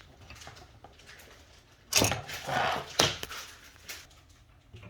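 Handling noise at a hole in a drywall wall as a bolt on a pull line is fished out with a magnet: a scraping rustle about two seconds in and a sharp knock about a second later.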